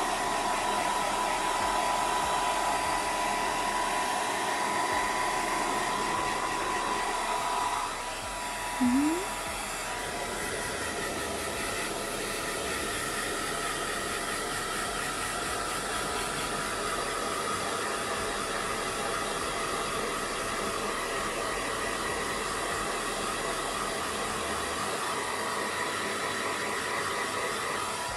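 Handheld hair dryer blowing steadily with a thin whine, the whine changing slightly about eight seconds in. A short rising squeak is heard about nine seconds in, and the dryer cuts off at the very end.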